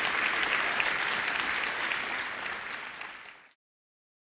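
Audience applauding, fading out and stopping about three and a half seconds in.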